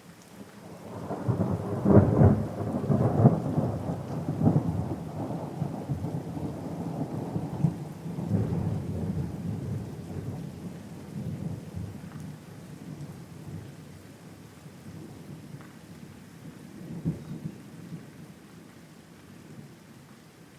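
A thunderclap during steady rain: the rumble builds about a second in, cracks several times at its loudest, then rolls on and slowly fades. A smaller rumble comes near the end.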